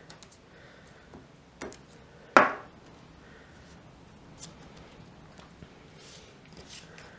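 A plastic glue stick set down on a tabletop with one sharp knock about two seconds in, among faint rustles and light taps of card cutouts being pressed down by hand.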